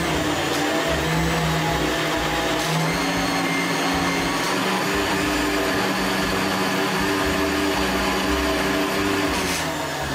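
Countertop jug blender running steadily at speed, puréeing cooked vegetables with broth. Its pitch steps up slightly a few seconds in, and it cuts off near the end.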